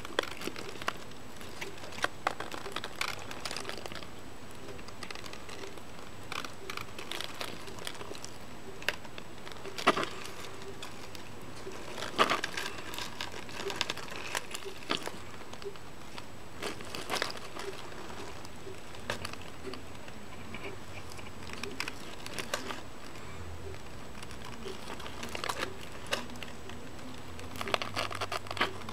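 Baby tortoises clicking and scraping their beaks and shells against a toy car as they try to bite it, in scattered taps, scratches and rustles.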